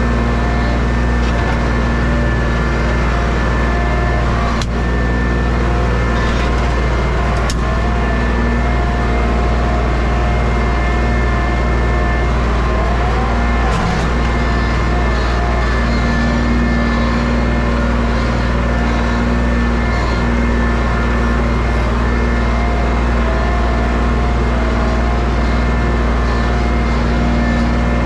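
Engine running steadily at an even speed, with a few brief clicks over it.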